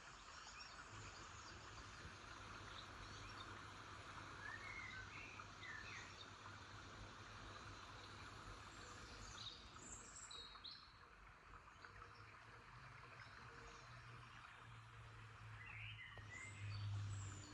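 Faint outdoor background noise with a steady low hum, and short bird chirps a few times: around five seconds in, about ten seconds in and near the end.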